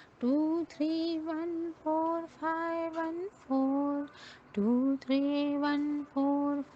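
A woman's voice chanting the number sequence 2314514 as a slow sing-song, each digit held as a steady sung note with short gaps between them. It is a repetitive, mantra-like recitation of a switchword number.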